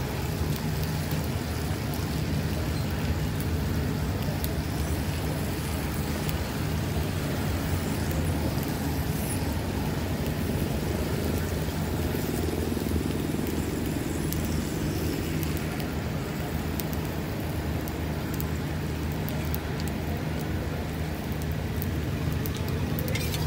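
Steady street background of traffic noise, a constant low hum under a hiss, with an egg roti frying quietly on a flat metal griddle.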